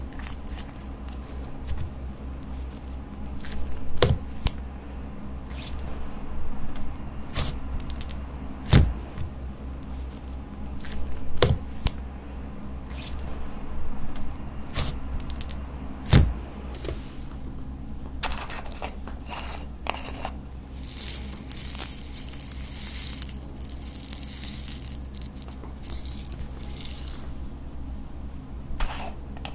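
Glossy slime being squeezed, folded and stretched by hand, with four loud sharp air-bubble pops spread through the first half. Later, as it is pressed flat on a table, there is a longer stretch of crackly, sticky hiss.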